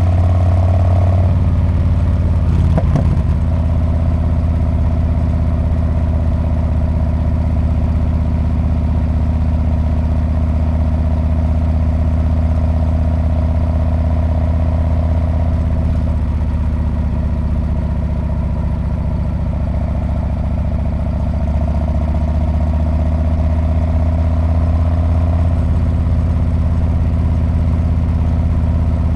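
Harley-Davidson Street Bob's V-twin engine and exhaust running steadily under way, the note shifting slightly about a second in and again later as the throttle changes. A brief rattle comes about three seconds in.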